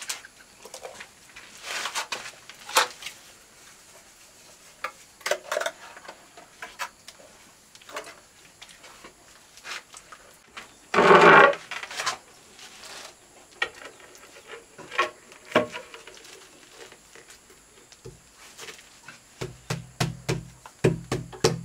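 Hand-tool work on ceramic tile and mortar: scattered knocks, clicks and scrapes, with one louder half-second scrape about halfway through. Near the end a run of quick, even taps begins, about three a second.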